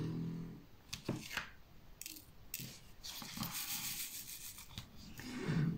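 Stainless-steel multi-placer tip of a diamond-painting pen scraping and clicking against small resin drills as it scoops them up and presses them onto the canvas: a couple of light clicks about a second in, then short scrapes and a longer stretch of soft rubbing and rattling.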